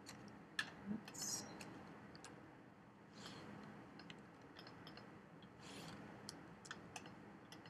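Faint, scattered clicks of a computer mouse and keyboard, irregularly spaced, over a low steady hiss.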